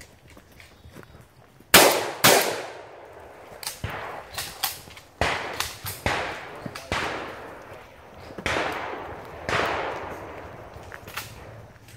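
Shotgun shots, about ten at uneven intervals, each followed by an echoing tail; the loudest pair comes about two seconds in.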